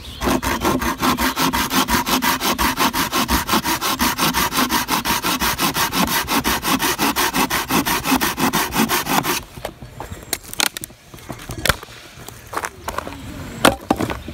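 Hand saw cutting through a dead branch with quick, even back-and-forth strokes for about nine seconds, then stopping abruptly. A few scattered sharp knocks follow.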